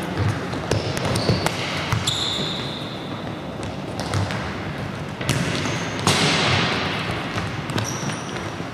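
Futsal balls being kicked and bouncing on a sports-hall floor in scattered thuds, with a few brief high squeaks of shoes on the court.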